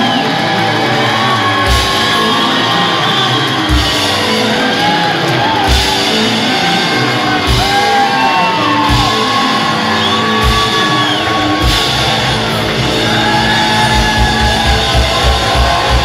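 Hard rock trio playing live and loud: bass guitar, electric guitar and drum kit, with heavy accented hits about every two seconds and a rapid double bass-drum run near the end.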